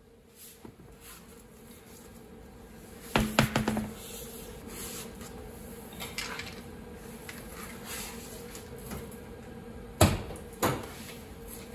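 Metal clanks and knocks as a car's alloy wheel is pulled off its hub, bunched about three seconds in with a brief low ring. Two sharp knocks follow near the end, over a faint steady hum.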